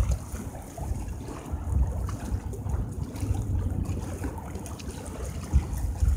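Wind buffeting the microphone in uneven low gusts, over small waves lapping at a concrete seawall. A short low thump comes near the end.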